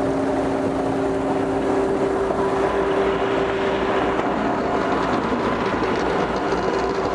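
Volumetric concrete mixer truck and concrete pump running together while concrete is fed into the pump's hopper: a steady diesel machinery drone with a held whine over it.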